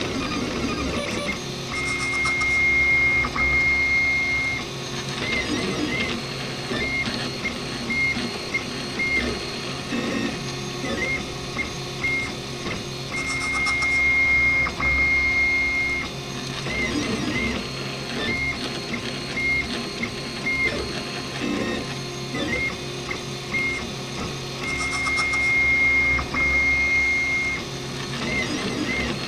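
RepRap Prusa Mendel 3D printer's stepper motors whining as the print head moves: a steady high tone held for two to three seconds on long moves, broken up by short chirping tones on short moves, the pattern repeating about every eleven seconds.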